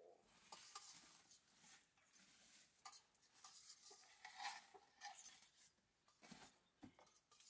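Faint rustling and crinkling of a large woven sack being shaken open and spread out on the floor, with a couple of soft knocks near the end.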